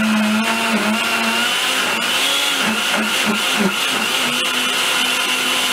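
Princess countertop blender running at full speed, puréeing leafy greens and vegetables with liquid. Its steady motor hum wavers and dips a few times around the middle.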